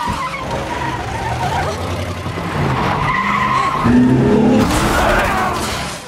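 A van's engine running hard with its tyres skidding, loud, getting louder around the middle.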